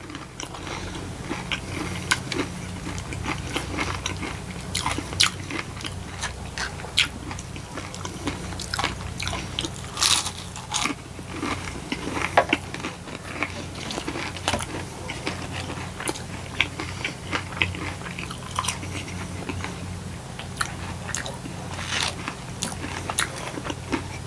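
Close-miked eating: chewing with frequent short, sharp crunches of crispy fast food (burger, onion rings and fries), over a steady low hum.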